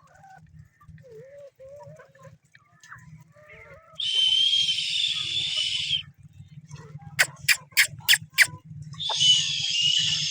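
Hens clucking softly, broken by a loud hissing buzz with a steady high whine, about two seconds long, heard twice, with five sharp clicks in quick succession between the two buzzes.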